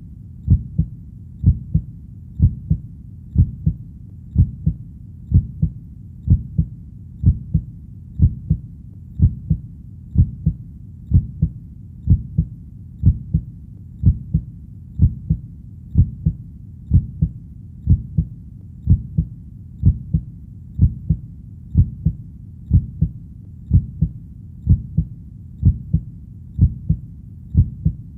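Heartbeat playing as a steady, even pulse of about one beat a second. Each beat is a low, muffled double thump (lub-dub) over a constant low rumble.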